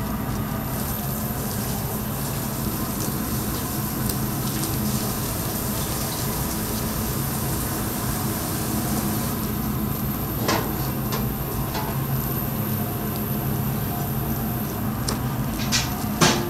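Steady low hum under a hiss like running water or frying, with a few sharp clinks about ten seconds in and near the end.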